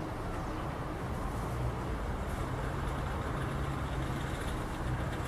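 Steady low rumble of an Airbus A320-family airliner's jet engines as it flies past.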